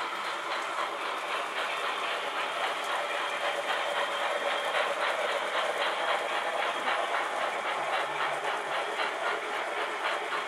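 Model trains running on a layout: steady rolling rumble of metal wheels on the track with a fast, even clicking over the rail joints.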